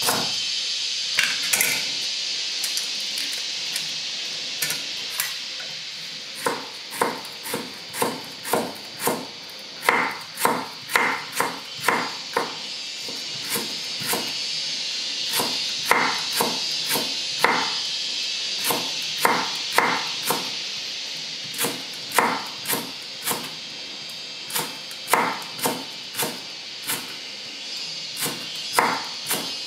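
Large kitchen knife slicing lemongrass stalks on a thick wooden chopping board: sharp knocks of the blade on the wood, about two a second in runs broken by short pauses, over a steady high hiss.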